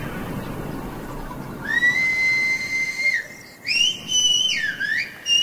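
Silbo Gomero, the whistled language of La Gomera: a man whistles with a finger in his mouth, starting about a second and a half in. It comes as loud, clean phrases of long held notes joined by slides in pitch. The first note is lower and ends in a drop; the later ones are higher, with a dip and a rise between them.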